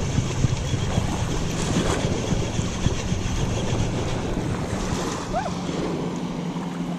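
Wind buffeting the camera microphone in uneven gusts, easing near the end, over a steady low drone from a motorboat on the river.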